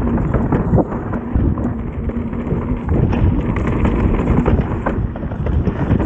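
Mountain bike clattering and knocking over rough, rocky trail at speed, with wind rumbling on the microphone.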